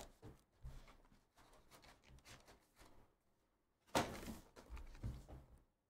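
Quiet handling of a sports-card box and its card stack, faint scrapes and taps, with a soft knock about four seconds in and a few lighter ones after.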